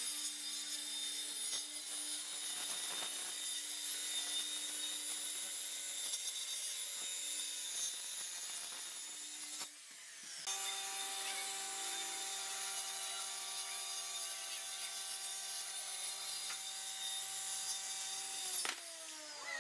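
Corded Maktec circular saw running steadily and ripping through a wooden panel, its motor whine mixed with the hiss of the blade in the wood. After a brief break about ten seconds in, a power tool runs again through wood at a higher pitch and winds down near the end.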